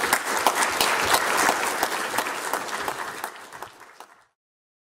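Audience applauding at the end of a talk, the clapping thinning out and cutting off abruptly about four seconds in.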